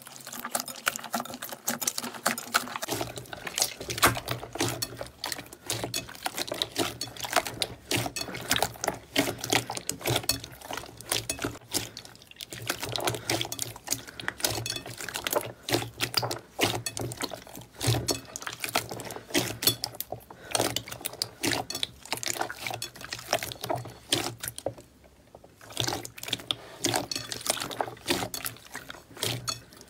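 Hands kneading, pressing and stretching glossy slime in a bowl: a continuous stream of wet clicks, pops and squelches, briefly quieter about 25 seconds in.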